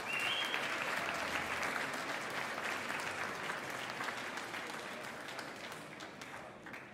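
Audience applauding, many hands clapping at once, the applause slowly dying down toward the end.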